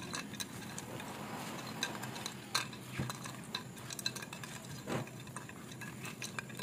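A spatula stirring a bowl of chopped dried fruit and nuts wet with brandy and essences: a soft rustle with irregular light clicks.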